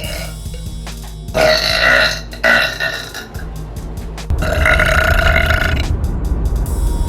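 A woman burping loudly three times: a long burp about a second and a half in, a short one right after, and another long one near the middle.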